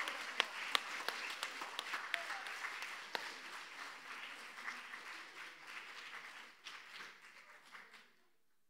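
Audience applause with sharp individual claps, thinning out gradually and stopping about eight seconds in.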